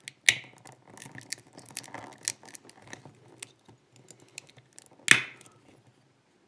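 Wire cutter of a Leatherman multitool biting through the steel strands of a bicycle cable lock: a run of small clicks, with two loud sharp snaps as strands part, one just after the start and one about five seconds in.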